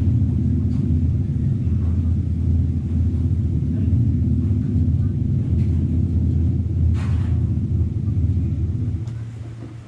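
The dance music's sustained low drone, a deep held chord, fading out near the end as the piece finishes. A brief click about seven seconds in.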